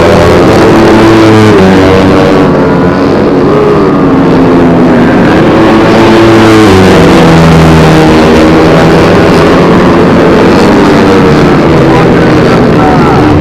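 Several 150cc four-stroke underbone race motorcycles running hard and loud, their engine notes overlapping and rising and falling in pitch as they rev through the gears.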